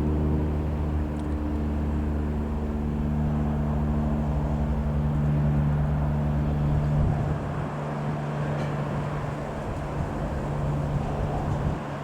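Piper PA-28-140 Cherokee's four-cylinder Lycoming O-320 piston engine running steadily with a low, even drone. About seven seconds in, the lowest part of its note fades and more rushing noise comes through.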